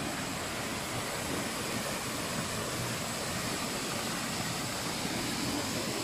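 Small mountain waterfall and stream pouring over rocks: a steady rushing of water.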